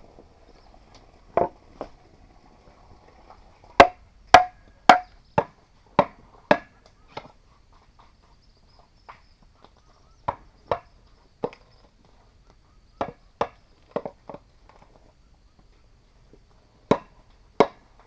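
A tool striking bamboo in short runs of sharp, hollow knocks, about two a second in the longest run, with pauses between the runs, as the bamboo is cut and shaped. Several strikes ring briefly.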